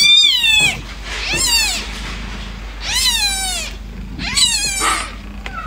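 Newborn kitten crying: four high, thin mews, each falling in pitch, about one every second and a half.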